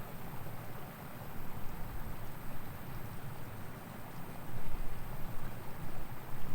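Outdoor ambient noise: an uneven low rumble under a light hiss, swelling a little about four and a half seconds in and again near the end, with no crossing bell or train heard.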